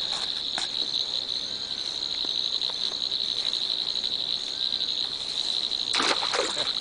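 A loud, steady insect chorus trilling high and continuously. About six seconds in, a short burst of splashing as a traíra strikes the surface lure.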